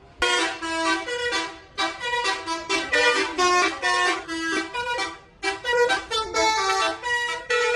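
Bus telolet horn, a set of tuned air horns, playing a quick melody of short notes at different pitches. It starts a fraction of a second in, with two brief pauses.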